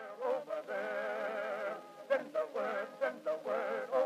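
Background music: a slow melody of long held notes with strong vibrato, briefly breaking off between phrases.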